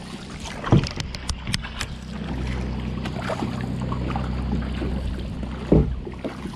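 Paddle strokes splashing water beside a plastic sit-on-top kayak, with a few sharp knocks. The loudest knocks come under a second in and again near the end.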